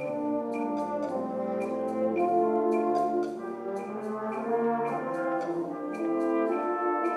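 A high school wind ensemble playing: brass and woodwinds holding and moving through full chords, over a steady beat of light percussion strokes about twice a second.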